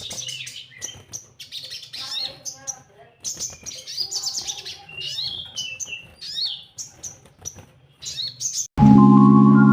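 Sogon (crimson sunbird) singing: a rapid run of high, thin chirps and short twittering trills. Near the end, music with mallet-instrument tones cuts in suddenly.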